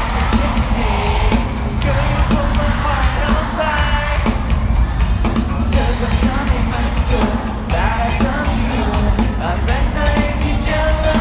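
Pop song with sung vocals and a steady, heavy beat, played loud over a venue's sound system for a live dance performance.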